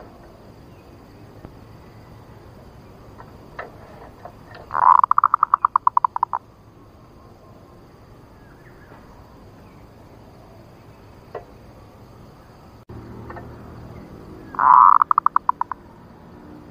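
Female zebra dove (perkutut) call, heard twice: each time a loud opening note runs straight into a quick series of short pulses that fade away over about a second and a half.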